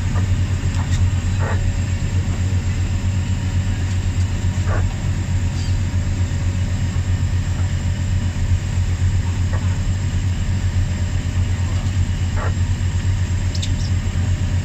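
Boat's engines running steadily under way, a low even drone heard from inside the wheelhouse, with a few faint clicks over it.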